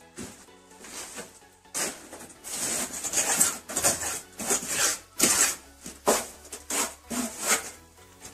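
Repeated rasping, scraping strokes, roughly two a second, starting about two seconds in, with quiet background music beneath.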